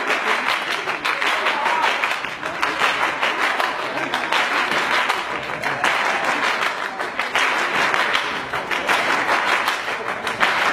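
Crowd applause: dense, continuous hand clapping.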